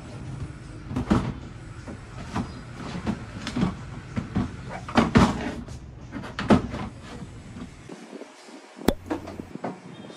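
Plastic drawer unit knocking and scraping against a wooden desk cabinet as it is pushed into place: a run of irregular knocks and clatters, then one sharp click near the end.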